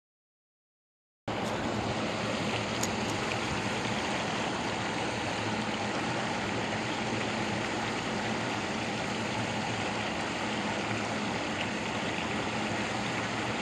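Silence for about a second, then the steady rush of water pouring over a low concrete spillway dam.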